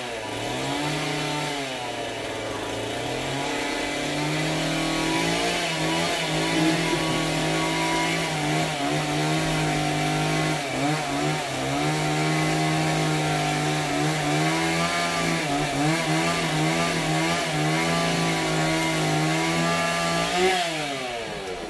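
Domestic cat growling during its bath, a low, drawn-out moan that wavers up and down in pitch with short breaks, fading out near the end: the cat's protest at being washed.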